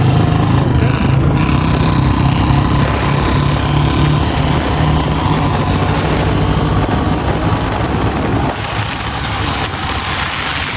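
Royal Enfield Bullet 350 single-cylinder motorcycle engine running with a steady low exhaust beat, easing off about eight and a half seconds in.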